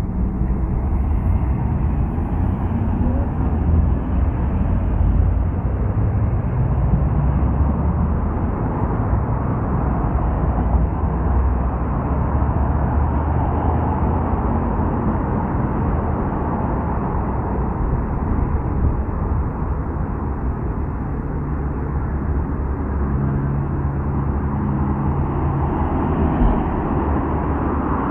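Road traffic: cars driving past on a multi-lane road, a steady rumble of engines and tyres, with an engine hum standing out later on.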